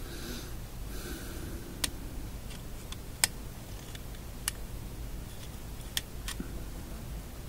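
Light, sharp clicks about every second and a half, with soft scraping near the start, as a hand-held magnet is stroked over a radio tuning meter's internal magnet to re-magnetize it.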